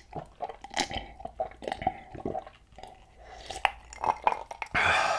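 A person gulping water from a glass mug, a run of quick swallows with small glass and liquid sounds, ending in a brief louder rush of noise.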